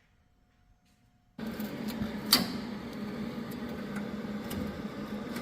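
About a second and a half of near silence, then a steady machine hum that starts abruptly, with a sharp click about two seconds in and a few lighter ticks after it.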